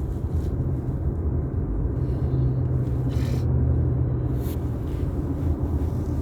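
Steady low rumble of a car driving, with engine and road noise heard from inside the cabin. A steadier engine hum comes in for a couple of seconds midway.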